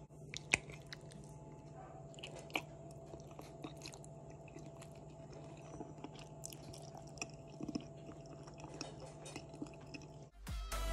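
Faint close-up eating sounds: chewing with scattered small clicks and ticks, a sharper one about half a second in, over a steady low hum. Upbeat music starts near the end.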